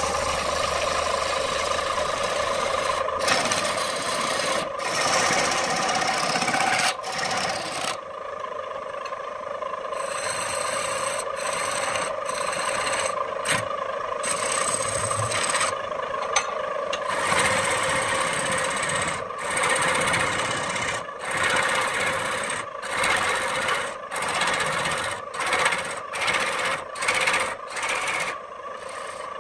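A lathe chisel cutting into a spinning redwood blank on a wood lathe: a steady scraping rasp over the lathe's steady hum. In the second half the cut breaks off and restarts in many short gaps.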